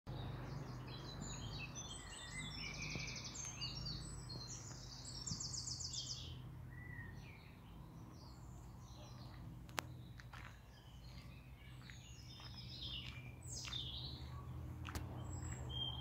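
Several songbirds singing, a dense chorus of high chirps and fast trills that thins to scattered calls about halfway through, over a steady low hum. A sharp click sounds once about ten seconds in.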